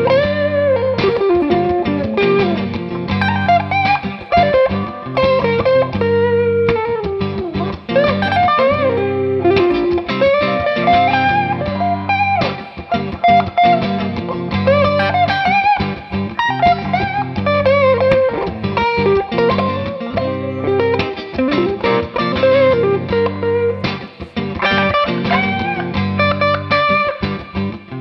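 Squier Bullet Stratocaster electric guitar played through an amp: melodic single-note lines with string bends over steady low notes.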